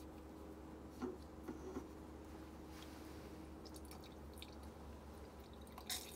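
Water dribbling from a hydration pack's drinking tube into an open SOTO Titanium Bottle 300: faint drips and trickle, with a few light clicks about a second in and near the end, over a low steady hum.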